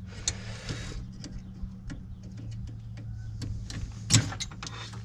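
Pliers working a small pin loose from the brake cable linkage: a string of light metal clicks and ticks, with one sharper click about four seconds in. A steady low hum runs underneath.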